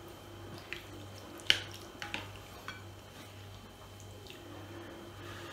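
Plastic serving spoon knocking a few times against a plate and a glass bowl as food is dished out, the sharpest knock about a second and a half in. A low steady hum underneath.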